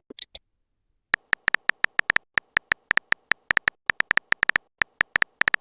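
A brief high chime, then from about a second in a fast, irregular string of short electronic beeps, all at one pitch.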